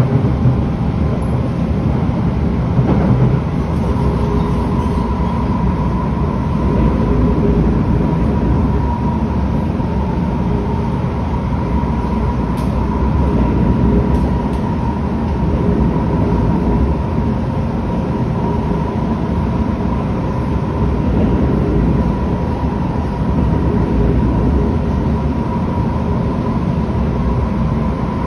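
Steady running noise inside a Kawasaki C151 metro train car: low rumble of wheels on rail with a steady high hum over it.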